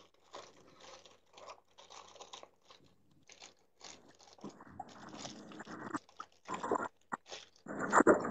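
Irregular crinkling and crunching as a plastic spice packet is handled and dried fenugreek leaves (kasuri methi) are crushed between the fingers, growing louder near the end.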